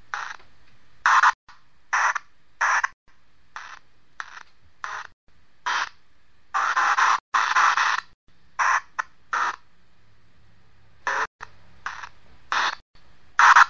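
A radio sweeping through stations: choppy, irregular bursts of static and clipped sound, roughly one a second, with one longer stretch of about a second and a half near the middle. This is the kind of device used to draw out voices in an EVP session.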